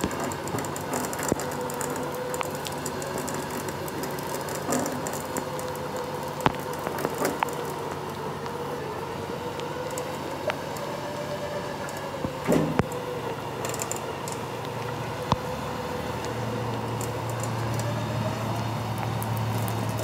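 Winch motor running under load as it pulls a heavy truck, with a steady whine that drifts slowly up and down in pitch over a low hum. A deeper hum grows near the end, and there are occasional sharp clicks and knocks.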